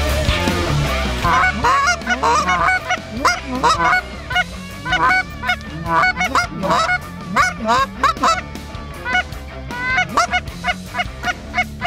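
Snow geese calling: many short honks, each bending up and down in pitch, overlapping in a dense chatter that starts about a second in.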